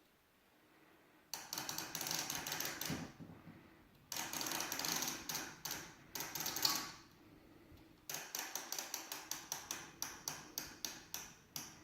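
Flip clock's number cards flapping over in quick clicking runs as the time is wound forward: three runs with pauses between them, the last a regular series of about four clicks a second.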